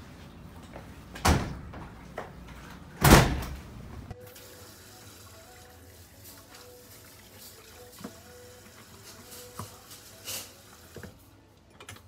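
Two heavy bangs of a back door, about two seconds apart, the second the louder with a short rattle after it. Then a kitchen tap runs quietly into a stainless steel sink while hands are scrubbed, with a few small clicks.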